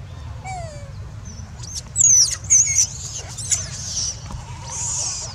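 Young long-tailed macaque giving shrill squeals with quick pitch slides, the two loudest about two seconds in, followed by a short rustle.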